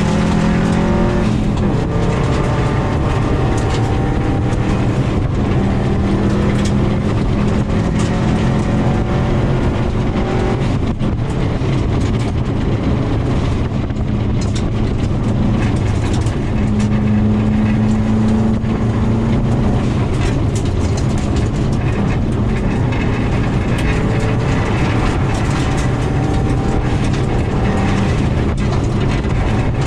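2000 Subaru WRX's turbocharged flat-four engine driven hard on a gravel rally stage, heard from inside the car: loud and continuous, the revs climbing and dropping with gear changes and braking, over steady tyre and gravel noise with scattered sharp clicks of stones.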